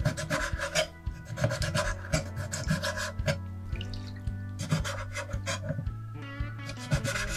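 A kitchen knife slicing raw sea cucumber on a wooden cutting board: quick runs of crisp cuts and knocks of the blade on the board, with short pauses between the runs.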